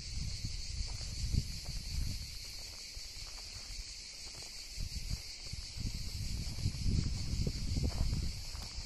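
Steady high-pitched buzzing of an insect chorus, with irregular low rumbles underneath that are strongest in the first two seconds and again from about five to eight and a half seconds in.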